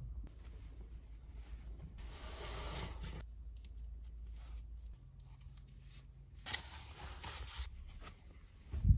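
Rustling of cloth and sheets being handled and laid out, with two longer rustles, about two seconds in and again past six seconds.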